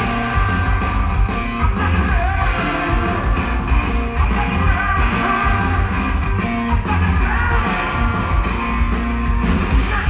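A live rock band playing: electric guitars and drums with a singer, loud, with heavy bass. It is recorded from within the crowd at a club gig.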